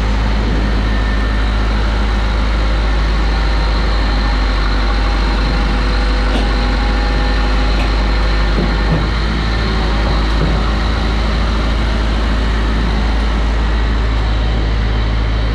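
Steady, loud drone of heavy engines running: the compact loader working its bucket at the back of a refrigerated container truck, with the truck running. A deep hum with a slight dip in level a little past halfway.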